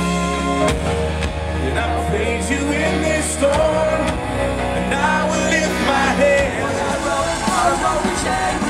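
Band music with a singer: a held chord at the start gives way, under a second in, to the full band playing with a sung voice over it.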